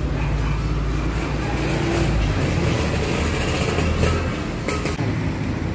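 A motor vehicle's engine running close by, a steady low hum that is strongest in the first couple of seconds and eases a little after.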